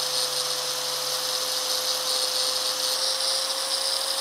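Electric angle grinder running with its abrasive disc grinding down a small steel bracket: a steady whine over a dense grinding hiss.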